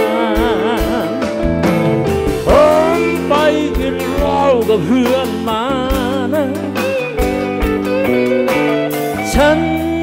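Live band playing phleng phuea chiwit (Thai 'songs for life') rock. A lead melody full of bends and vibrato rides over sustained electric bass and a steady kick drum.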